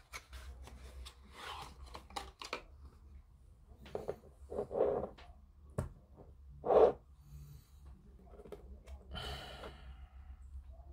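Small handling noises at a hobby workbench: scattered clicks, taps and rustles of plastic model parts and tools being picked up and set down, with a sharper click about six seconds in.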